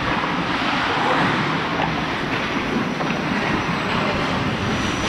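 Steady rushing and scraping noise of hockey skates gliding on rink ice, heard through a referee-worn GoPro's microphone with the rush of air over it as he skates.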